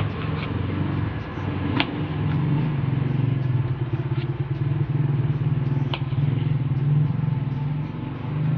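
Kitchen knife slicing an eggplant on a wooden chopping board, with a few sharp taps as the blade meets the board. Behind it a motor drones steadily, low and pulsing, and it is louder than the cutting.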